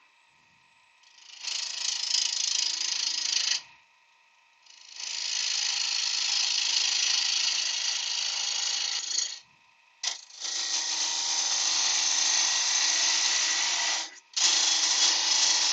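A workshop tool or machine runs in four bursts of steady, rasping mechanical noise, each two to five seconds long, with short near-silent gaps between them.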